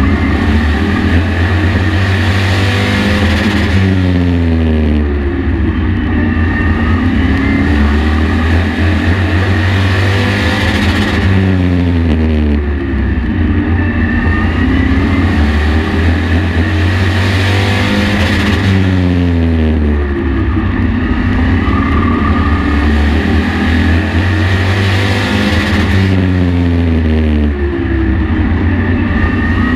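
Race truck engine at full race pace, heard from inside the truck. The pitch drops as the driver lifts into each corner and climbs again on the throttle out of it, repeating about every seven to eight seconds as it circles a short oval.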